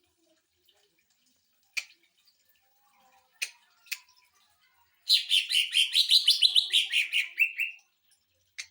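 Cucak ijo (green leafbird) giving a few single sharp calls, then a loud, rapid stuttering run of notes lasting nearly three seconds, about eight a second and dropping in pitch near the end: the 'sewing machine' burst prized in this bird's song. One more sharp call comes near the end.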